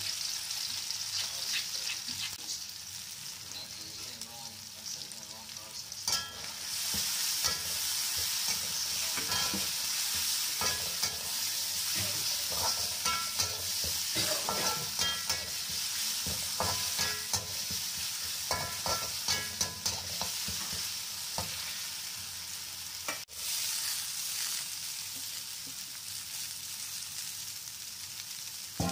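Pounded chilli, shallot and dried-anchovy sambal sizzling in hot oil in a wok, with a steady high hiss. From about six seconds in to about twenty seconds in, a metal spatula scrapes and clacks against the wok as the paste is stirred.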